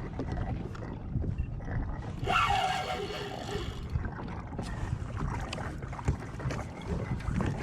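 Wind buffeting the microphone and water moving around a kayak, a steady low rumble. A brief, louder higher-pitched sound comes in about two and a half seconds in and lasts about a second.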